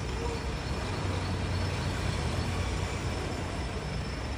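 Steady low rumble of street traffic with an even background hiss.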